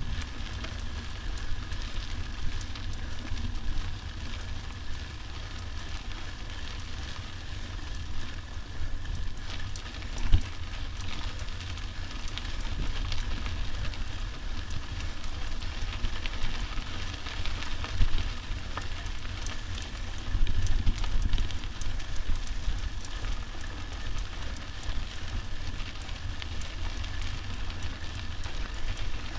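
Mountain bike rolling along a dirt track: tyres crackling over grit and small stones, with wind rumbling on the camera's microphone. There are a couple of louder jolts from bumps in the track, about ten seconds in and again near eighteen seconds.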